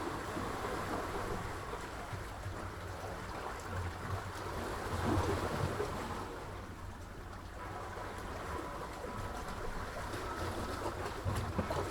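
Sea waves washing and surging in a continuous rush, swelling to a louder wash about five seconds in.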